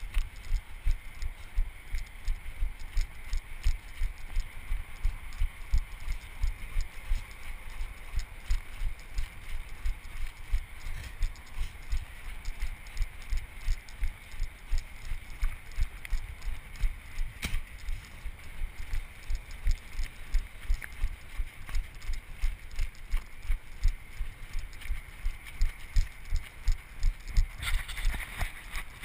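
A runner's footfalls on a snowy trail, jolting a body-worn GoPro at each stride: a steady run of low thumps, about three a second. A sharp click sounds about halfway through.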